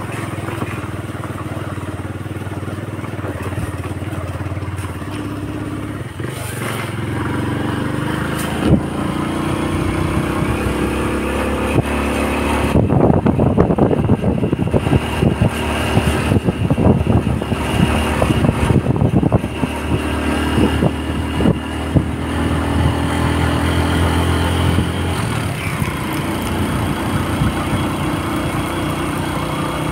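Small motorcycle engine running as the bike rides along, its pitch rising about seven seconds in as it speeds up. Through the middle, a choppy, gusty rush of wind on the microphone lies over it.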